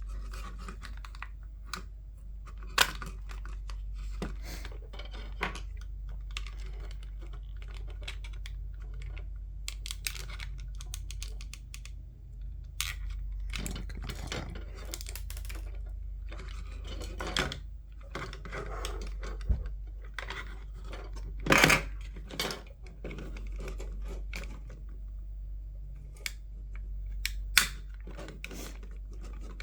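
Irregular clicks, taps and short scrapes of small plastic headset parts being handled and pried during disassembly, with a louder cluster of clicks about two-thirds of the way through, over a steady low hum.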